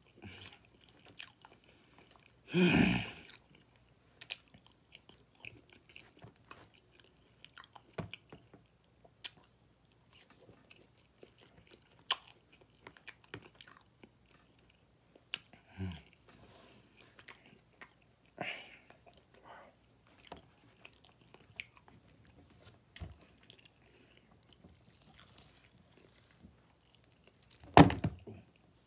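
Close-up chewing and biting of saucy barbecue ribs and fries, with many small wet mouth clicks. A few louder bursts stand out, about three seconds in and near the end.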